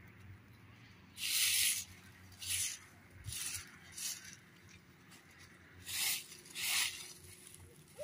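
Six short hissing bursts, each under a second long, with the longest about a second in.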